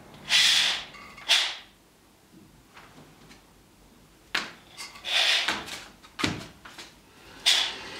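Dry houseplant leaves rustling and crackling in short bursts as they are plucked off and handled, with a soft knock about six seconds in.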